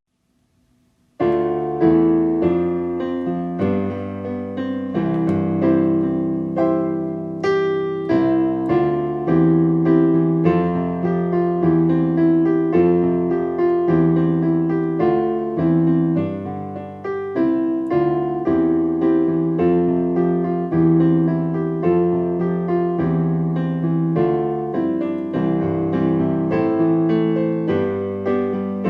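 Solo piano music, played at a steady pace, starting about a second in after a brief silence.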